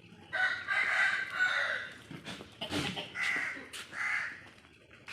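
A rooster crowing, one long call near the start, followed by two shorter calls.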